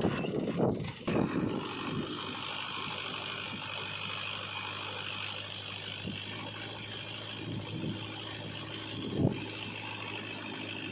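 Heavy diesel machinery engine running steadily, with a few brief louder bumps.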